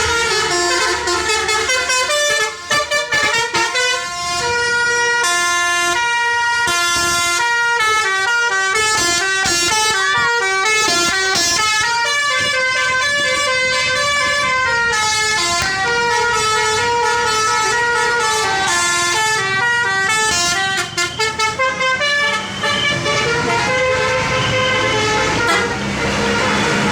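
Telolet bus horns, multi-tone air horns, sounding rapid sequences of notes, with several horns overlapping in a horn battle. The melody breaks into short choppy toots about three seconds in and again about twenty-one seconds in.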